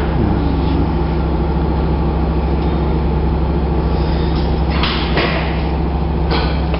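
A model Kauertz rotary engine running steadily on compressed air: a constant mechanical hum with a hiss of air under it. Short gusts of air noise come about five seconds in and again near the end.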